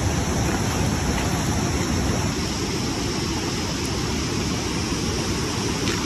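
Steady rushing of a fast mountain river, an even wash of water noise.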